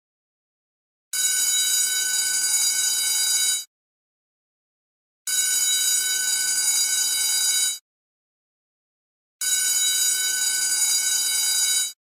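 School bell ringing in a repeating pattern: three rings of about two and a half seconds each, with a silent gap of about a second and a half between them.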